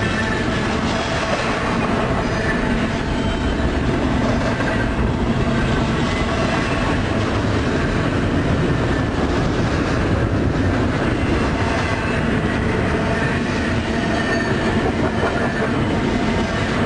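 Railroad cars rolling steadily on the rails, a continuous dense rumble of wheels on track with faint high squealing tones over it.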